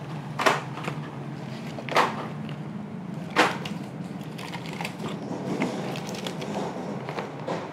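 Hands rummaging in a taped cardboard carton: cardboard rustling and scraping, with three sharp cracks about half a second, two and three and a half seconds in.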